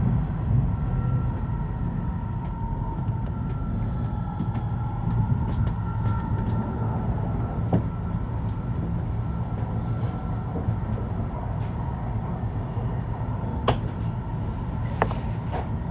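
Cabin noise of a Shinkansen running on the Tohoku line: a steady low rumble with a faint whine, broken by a few sharp clicks.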